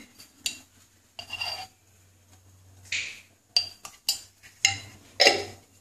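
About seven short clinks and knocks of kitchenware against a nonstick pan on the stove while a little sunflower oil is added, some ringing briefly.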